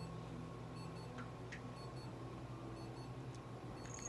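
Quiet room tone: a steady low hum with faint, short high ticks in pairs about once a second.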